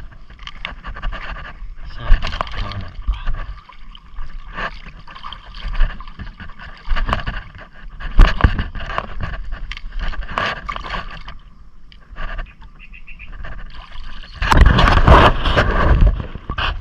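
Water splashing and sloshing in irregular bursts, with a louder spell of splashing near the end.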